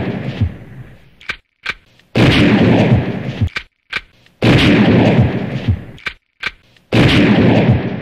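Looped gunshot sound effect: a couple of quick clicks, then a loud shot with a decaying echo, repeating about every two and a half seconds, three times.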